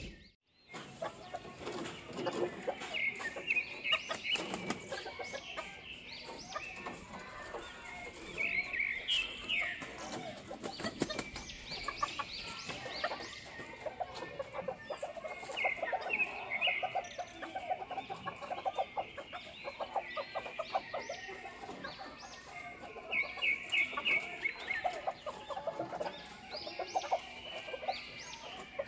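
Chickens clucking on and off, with short high chirping calls repeating over them.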